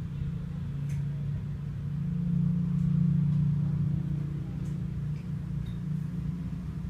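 A low, steady mechanical hum that swells about two seconds in and eases off after about four seconds, with a few faint ticks.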